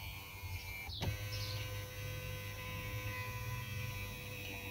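Small electric motors of a car seat's massage mechanism running with a steady hum, with a click about a second in and brief high squeaks.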